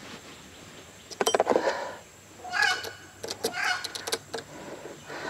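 Light metallic clicking of a hex key and bolt being worked on a bike's front fork, with a quick cluster of clicks about a second in. A crow caws twice, about a second apart.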